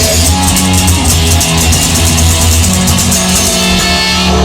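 Rock song's instrumental stretch: guitar over drums with a steady low end, no singing.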